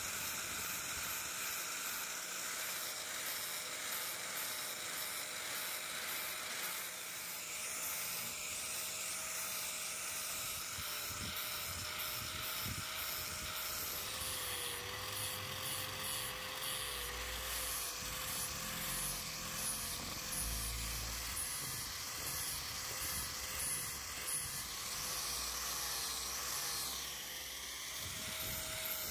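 Small high-speed electric power tool running steadily with a hissing, grinding noise. Its whine drops a little in pitch about halfway through, as if loaded harder, and rises again near the end.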